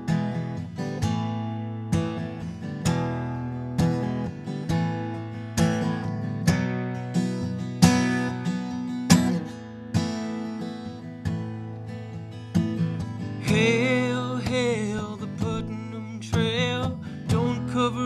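Steel-string acoustic guitar played in a slow, steady rhythm of strummed and picked chords. About three quarters of the way through, a singing voice with vibrato comes in over the guitar.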